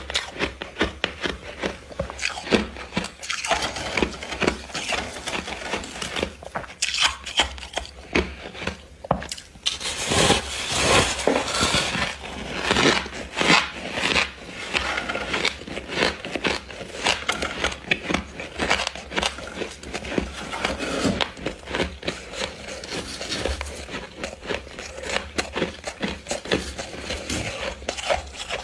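Freezer frost being bitten and chewed: a dense, irregular run of crunches.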